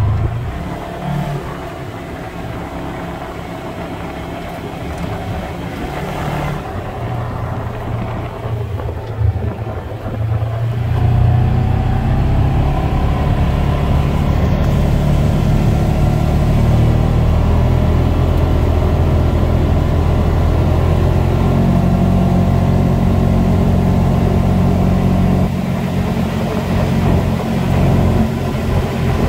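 Polaris Ranger XP 1000 UTV's twin-cylinder engine and belt drive running at full throttle in performance mode, heard from the cab. It gets louder about ten seconds in and then holds steady at high revs near top speed.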